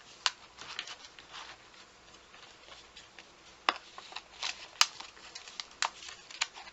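Handling of notebooks and a journal cover: soft rustling and sliding of paper and cover material, with several sharp clicks and taps, the loudest a little under two seconds before the end.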